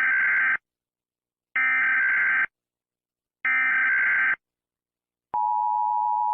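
Emergency Alert System SAME header: three short bursts of buzzing digital data, each under a second and about two seconds apart. About five seconds in, the steady two-tone EAS attention signal starts.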